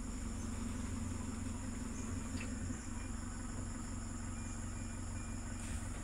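Pickup truck engine running steadily with a low hum, under a steady high chirring of insects.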